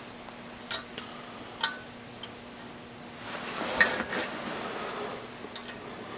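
Small metal parts clicking and clinking as nuts are fitted onto the camshaft bearing cap studs of the cylinder head: two sharp clinks in the first two seconds, then a stretch of scraping and handling with another sharp click about four seconds in.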